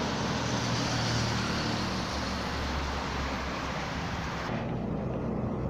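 Road traffic passing: a motorcycle and cars going by close, with a heavy lorry's engine in the mix. About four and a half seconds in, the sound turns abruptly duller.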